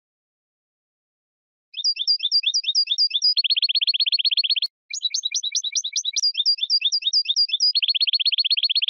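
European goldfinch singing. After about two seconds of silence come runs of quick high twittering notes alternating with very fast trills, with a short break near the middle.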